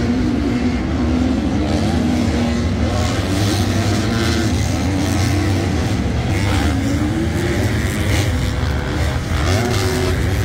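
250cc four-stroke supercross bikes running on the track, their engines revving, rising and falling in pitch continuously.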